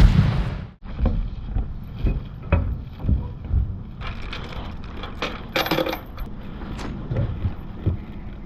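Irregular light knocks and clinks aboard a small fishing boat over a low rumble of wind and water. A loud hit at the start dies away within the first second.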